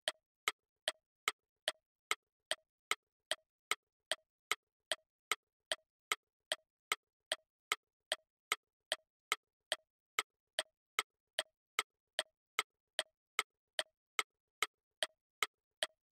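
Steady clock ticking of a quiz countdown timer sound effect, about two and a half even ticks a second.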